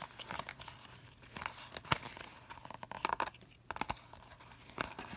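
Stack of Topps trading cards being thumbed through, card stock sliding and flicking against card stock: soft rustling broken by scattered sharp clicks, the sharpest about two seconds in and a cluster of them near the end.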